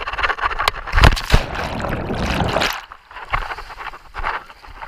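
Water rushing and splashing, with wind buffeting the action camera's microphone. It is loudest for the first three seconds, with two heavy slaps about a second in, then drops to lighter, broken splashing.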